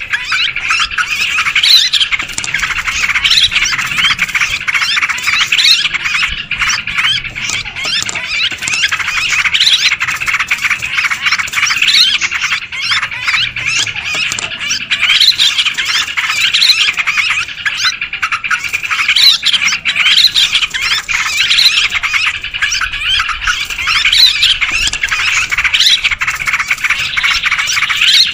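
A flock of yellow-vented bulbuls chattering and calling noisily over one another, many bubbly calls overlapping without a break: a busy bulbul lure call for drawing wild birds in.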